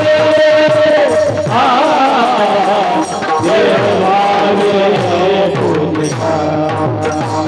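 Marathi devotional bhajan singing: a voice holding long notes and ornamenting them with wavy runs, over a steady rhythm of drum strokes and percussion.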